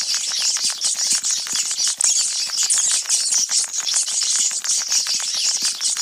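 Sewer rats sound effect: a crowd of rats squeaking and chittering in a dense, high-pitched mass, laced with rapid scratchy clicks.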